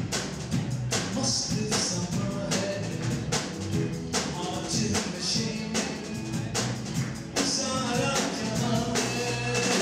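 Music with a steady percussion beat and a voice singing.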